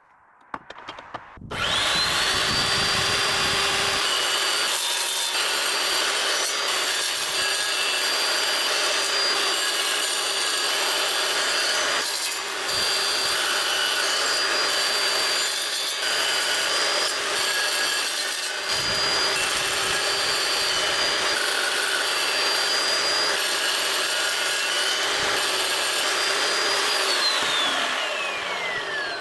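Chop saw cutting through steel bar stock. The motor spins up with a rising whine about a second and a half in, holds a steady high whine under the noise of the cut, then winds down with a falling whine near the end.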